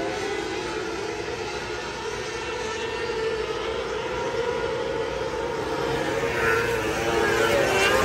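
A pack of 600cc micro sprint cars racing on a dirt oval, their high-revving motorcycle engines holding a steady, wavering pitch. It grows louder near the end, with the pitch rising and falling as a car passes close by.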